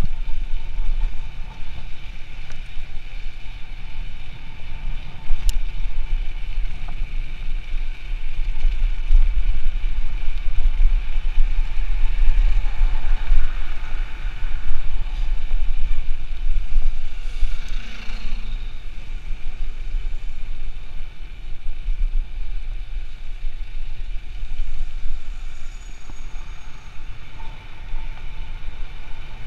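Wind and road rumble on an action camera's microphone while riding a bicycle in traffic, a loud, uneven low buffeting throughout with car traffic underneath.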